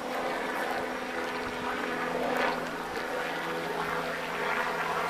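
Steady drone of a running engine: a low hum made of several unchanging tones over a faint hiss.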